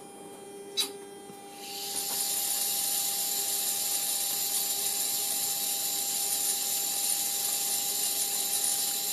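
A switch clicks about a second in; then the Boeing 707 CPA-24 navigation computer's motor-driven gear mechanism starts up and runs with a steady whir and a thin high whine over a low hum.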